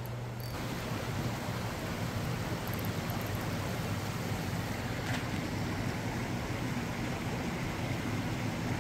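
Steady rushing of water in the tailwater below a dam, an even noise that sets in abruptly about half a second in, with a steady low hum underneath.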